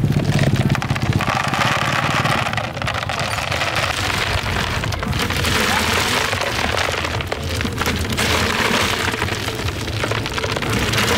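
A heap of live snails pouring out of a plastic basket into a plastic tray: a dense, continuous rattle of shells clattering on each other and on the plastic. A low engine hum runs underneath.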